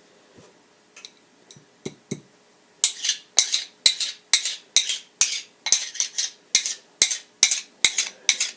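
A magnet stroked again and again along a steel screwdriver shaft to magnetize it: short metal-on-metal scrapes, each with a click, about two a second from about three seconds in, after a few light clicks.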